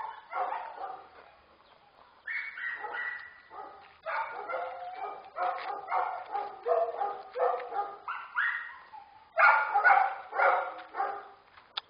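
A dog barking and yelping in quick runs of short, high calls separated by brief pauses. The run a little past the middle is the loudest.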